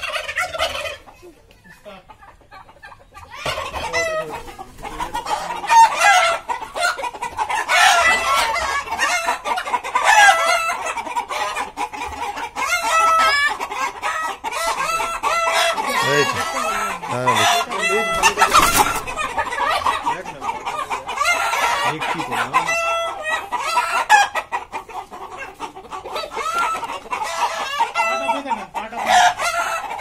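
A flock of caged Kadaknath chickens clucking, with roosters crowing among them. The calls come thick and fast from a few seconds in.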